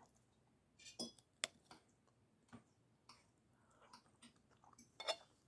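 Faint, scattered clicks and mouth smacks of a person eating a hot forkful of chicken and noodles, the loudest near the end.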